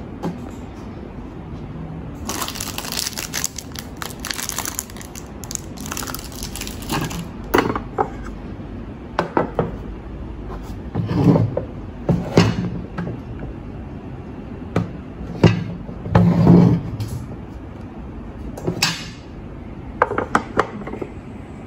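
Handling of a Monda 3-in-1 waffle maker: scattered clicks and knocks of its plastic lids, knobs and plates being moved, with a stretch of crackly rustling a few seconds in and several louder dull knocks in the second half.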